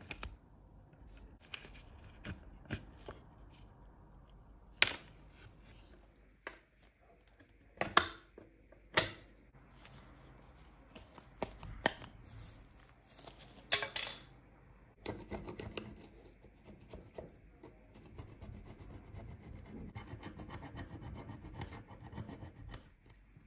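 Sharp clicks and taps from handling the small parts of a rusty scale-model VW T1 bus. In the last third comes steady, rapid scraping as a thin metal tool scrapes rust off the model's roof.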